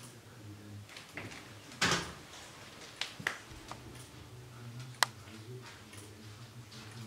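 Ticking and clacking of a laser-cut MDF and acrylic wooden gear clock with a grasshopper escapement, a few sharp clicks at uneven intervals, with one louder knock about two seconds in.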